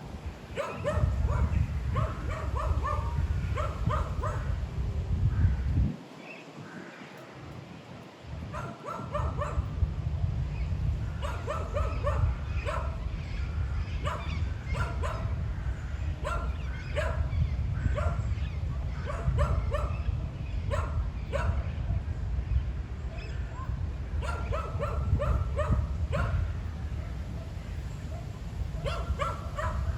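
Wind rumbling on the microphone, dropping away for about three seconds some six seconds in. Over it come runs of short, repeated animal calls, several in quick succession each time.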